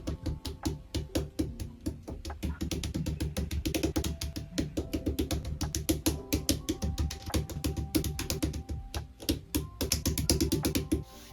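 Lubed linear keyboard switches being pressed one after another into a polycarbonate plate and hot-swap PCB, giving a rapid, irregular run of sharp plastic clicks and snaps, several a second. Background music plays underneath.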